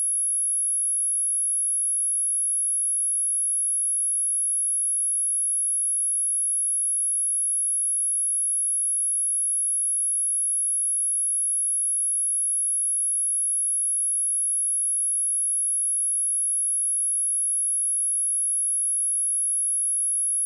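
A single steady 10747 Hz sine-wave test tone, a high-pitched whine held at constant level without a break.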